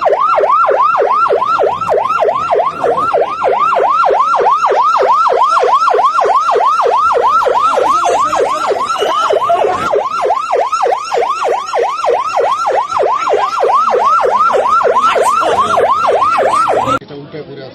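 Emergency vehicle siren in a fast yelp, its pitch sweeping up and down about three times a second, cutting off suddenly near the end.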